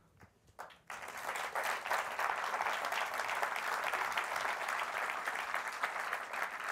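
Audience applause, starting about a second in and tapering off near the end.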